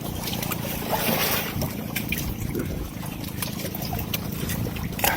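Steady low drone with water trickling and a few small clicks and knocks, with a sharper knock near the end.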